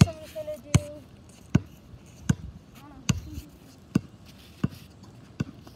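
Basketball being dribbled on pavement: about eight sharp, evenly spaced bounces, a little more than one a second.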